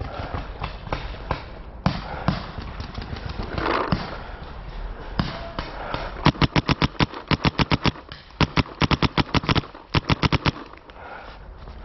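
Planet Eclipse Etha 2 paintball marker firing three rapid strings of shots, about eight or nine a second, from about six seconds in. Before that, footsteps rustle through dry fallen leaves.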